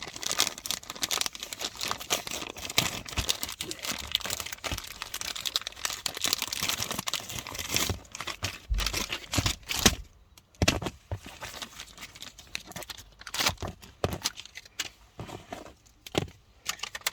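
Hands working an AUX adapter cable and its plug into the back of a pulled-out car radio: continuous crinkling and rustling of plastic and wiring, with scattered sharp clicks and knocks.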